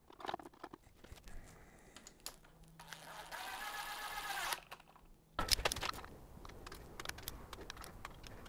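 Cordless drill-driver spinning a bolt on a VW 1.9L ALH TDI engine: a motor whine lasting about a second and a half around the middle. Before and after it come the metallic clicks and knocks of hand tools and a ratchet working on the engine.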